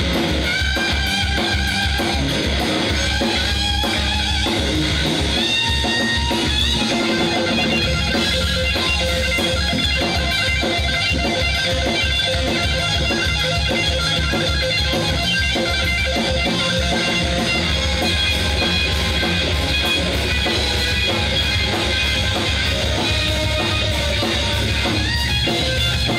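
Live electric blues trio: a Stratocaster-style electric guitar plays lead lines with string bends over bass guitar and a drum kit keeping a steady pulsing beat.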